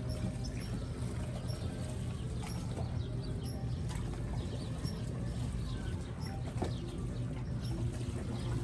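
Outdoor ambience by open water: a steady low hum under an even hiss, with scattered faint chirps and clicks.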